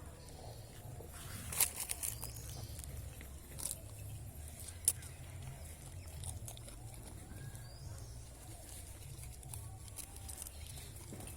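Open-field ambience: a steady low wind rumble on the microphone, a few sharp clicks, and faint short bird chirps.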